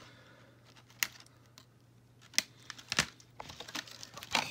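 Small nippers snipping the rubber bands and ties that hold a doll in its packaging: four sharp snips at uneven intervals, with plastic packaging crinkling near the end as the doll is pulled loose.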